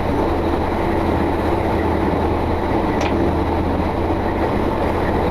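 Sportfishing boat's engine running steadily at trolling speed: a constant low hum under an even rushing noise.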